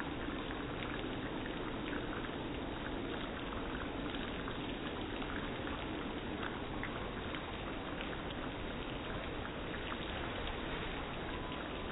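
Heavy rain falling: a steady hiss with many separate drops ticking.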